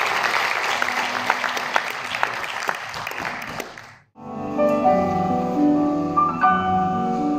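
Audience clapping, a dense patter of claps that fades away about four seconds in. After a brief silence, instrumental music with held, changing keyboard-like notes takes over.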